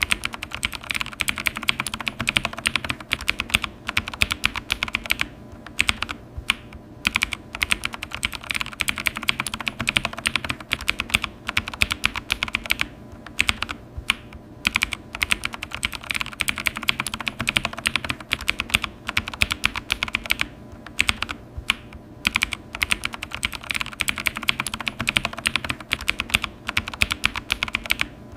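Computer keyboard being typed on quickly, rapid clicking keystrokes in runs broken by short pauses.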